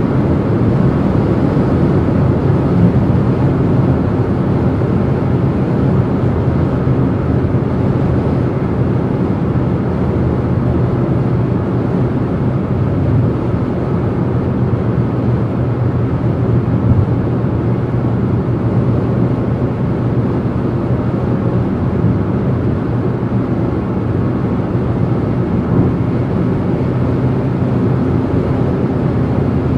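Steady rumble of a car driving at motorway speed on the Autobahn: tyre and road noise with wind and a low engine drone, unchanging throughout.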